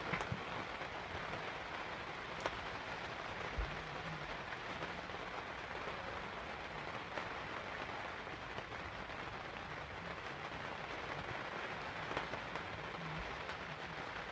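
Steady rain falling on a caravan roof, with a few sharper taps of single drops standing out.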